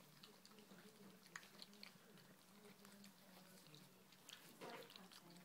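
Faint, scattered smacking and clicking of golden retriever puppies eating puppy porridge from a steel bowl, over a faint steady low hum.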